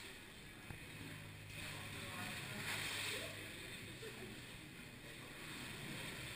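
Oar blades pulling through the water of an indoor rowing tank, with a swell of splashing about three seconds in.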